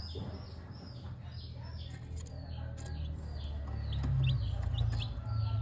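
Baby chicks peeping over and over, short high peeps falling in pitch about two to three a second, with quicker rising chirps joining in the second half. A low rumble underneath grows louder about halfway through.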